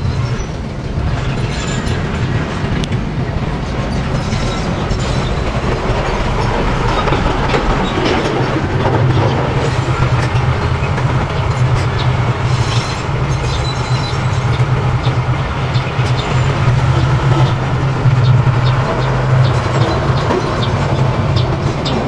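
Small crawler bulldozer's diesel engine running steadily under load, with a rattling clatter from its steel tracks; the engine hum is louder from about nine seconds in.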